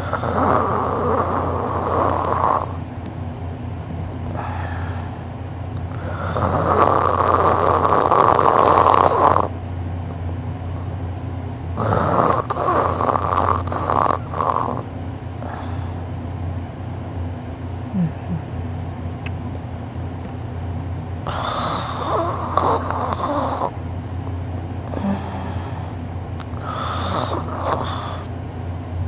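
A man snoring loudly in his sleep, like a lawn mower: about five long snores a few seconds apart, the loudest about seven seconds in and one near the middle broken into several short strokes, over a steady low hum.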